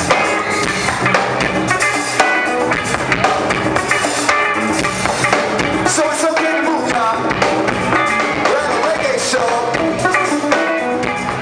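A live band plays a full mix of drum kit and hand drums with a singing voice over it. The sound begins to fade near the end.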